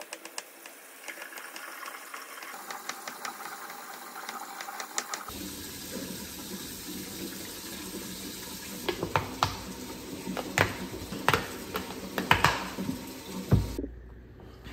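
A chef's knife tapping and cutting cooked chicken breast on a wooden cutting board, a run of quick clicks. Then metal tongs clinking against a pan of bok choy in liquid, over a steady watery hiss.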